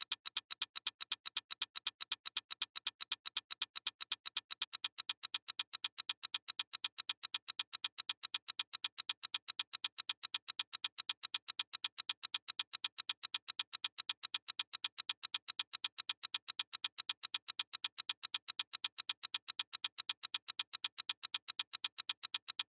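Wind-up kitchen egg timer ticking fast and evenly as it counts down, each tick a sharp, high click.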